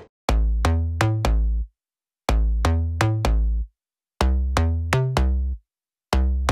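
Background music: an electronic beat with deep bass, played as short phrases of four notes, about one phrase every two seconds, with full silence between the phrases.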